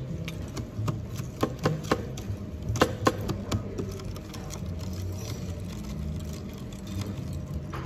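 Drinks being stirred in clear plastic cups: a stirrer clicks and taps against the cup sides in quick, irregular strokes for the first few seconds, over a low steady hum.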